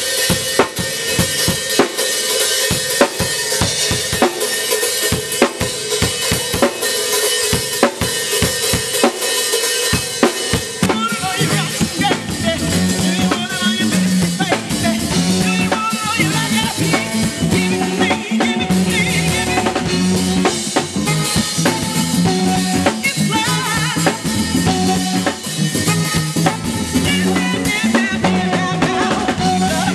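Live band music: a Gretsch drum kit playing a busy groove with plenty of cymbal, joined about eleven seconds in by a moving bass line and keyboard as the full band comes in, with a woman singing over it.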